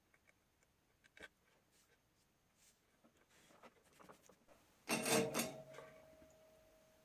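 Small handling sounds of soldering work on wires: light scratching and rubbing with scattered clicks, then a louder clatter about five seconds in, after which a faint steady tone lingers.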